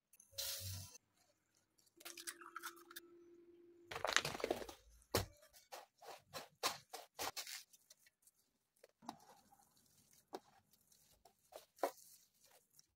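Hands mixing and kneading raw ground beef with spices and dry breadcrumbs in a baking tray: a run of short, irregular wet smacks and crackles, with a louder rush of noise about four seconds in.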